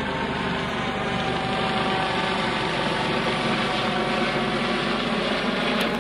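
Boat's outboard motor running steadily, a continuous engine hum over rushing noise.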